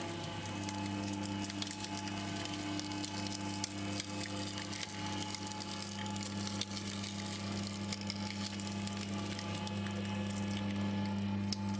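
JEEVA mini three-roller sugarcane juice machine crushing a sugarcane stalk. Its 400-watt electric motor hums steadily while the stainless-steel rollers crush the cane with irregular cracking and crackling.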